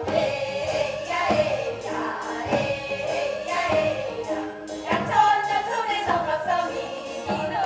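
Korean Seodo (northwestern) folk song: a woman's voice singing with a wavering, bending line over a traditional ensemble with held tones, and a beat struck about every second and a quarter.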